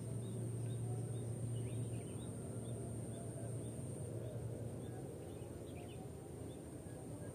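Outdoor ambience: a steady low hum with a small bird chirping over it, about two short chirps a second, and a faint steady high-pitched whine.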